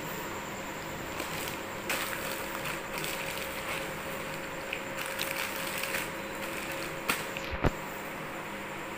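Cellophane wrapping on packs of plastic craft wire crinkling and clicking as a hand moves and presses the packs, in a few short crackles with the sharpest near the end, over a steady hiss.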